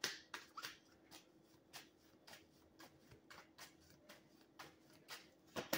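Faint, quick taps of a tarot deck being shuffled by hand, a few a second and uneven in strength, with a louder tap near the end.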